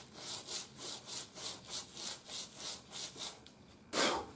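Fine steel wool scrubbed back and forth over a radio bezel, about four strokes a second, to buff off corrosion. The scrubbing stops after about three and a half seconds, and one louder scrape follows near the end.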